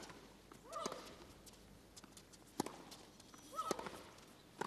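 A tennis rally: rackets striking the ball about once a second, with a short rising-and-falling grunt from one player on two of the shots.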